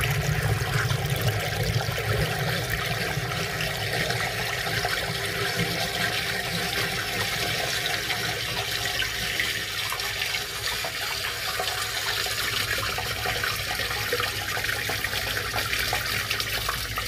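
Sewage running steadily through a root-choked sewer pipe: the line has just been broken through and the backed-up sewage from the house is draining away.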